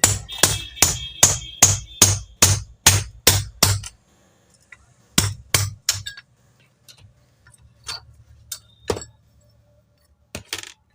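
Hammer blows on the metal end cover of a Kirloskar Tullu 0.5 hp pump motor, knocking it loose to open the motor. About ten steady blows come at roughly two and a half a second, the first few with a short metallic ring; after that come a few scattered knocks.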